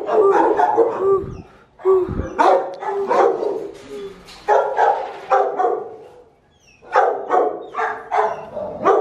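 Shelter dogs barking in their kennels, a string of repeated barks that come quickest near the end, in a hard-walled kennel corridor.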